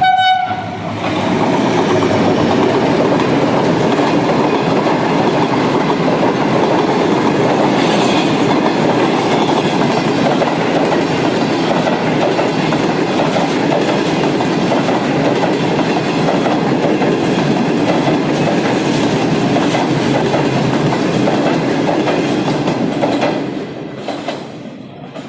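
Green Line Express passenger train passing at speed close by: a brief horn note at the very start, then the diesel locomotive and a long rake of coaches going past with a loud, steady rumble and the clatter of wheels on the rails, fading over the last couple of seconds as the last coach goes by.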